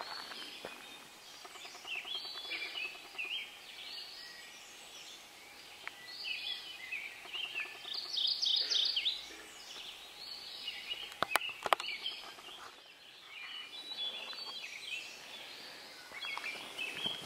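Dawn chorus of songbirds: several birds singing overlapping, chirping phrases over a soft background hiss, with two sharp clicks a little past the middle.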